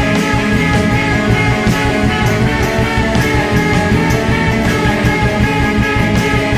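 Rock song's instrumental passage between sung verses: electric guitar over bass and a steady drum beat, with no vocals.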